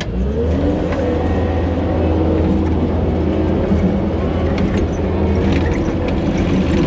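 Kubota SVL75 compact track loader's diesel engine throttling up, rising in pitch over the first second, then running steadily under load as the loader moves off, with a few light clanks near the end.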